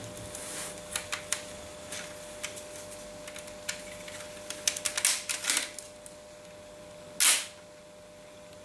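Plastic Lego Technic parts of a brick-built gun clicking and rattling as its mechanism is worked by hand, with a quick cluster of clicks about five seconds in and one brief, louder rushing snap about seven seconds in. A faint steady hum runs underneath.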